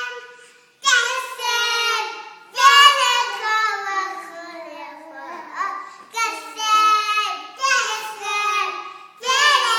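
A young child singing a melody in several short phrases with held notes.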